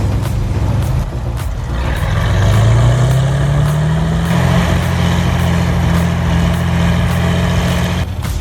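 Heavy vehicle engine revving up over a couple of seconds, then held at a steady higher speed under load. The sound breaks off abruptly near the end.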